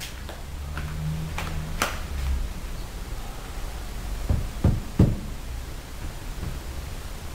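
Citroën C3 steel door panel struck with a tool to dent it on purpose. A sharp knock comes about two seconds in, then three dull thumps in quick succession about halfway through, the last the loudest.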